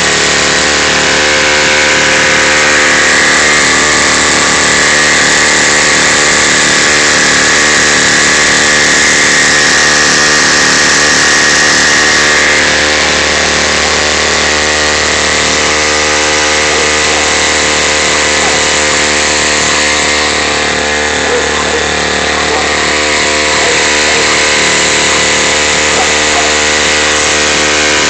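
Small outboard motor on a kayak running steadily under way, easing slightly a little under halfway through.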